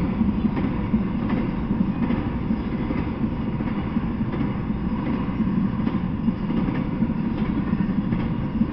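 Intermodal freight train rolling past, its flatcars carrying highway trailers: a steady rumble of steel wheels on the rails, with occasional faint clicks.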